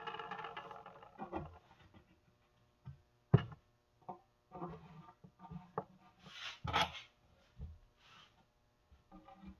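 Loose wood screws being handled against a wooden frame. A metallic clink rings out and dies away at the start, then come scattered light clicks, taps and a brief rub as screws are picked up and set by hand.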